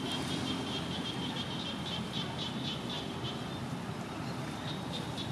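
Outdoor ambience: a steady background hiss under a high, thin chirping. The chirping starts as a held note, breaks into rapid chirps about five a second, pauses around three seconds in, and resumes briefly near the end.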